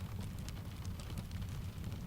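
Layered rain and fireplace ambience: a steady low rumble of rain with scattered sharp ticks and crackles throughout.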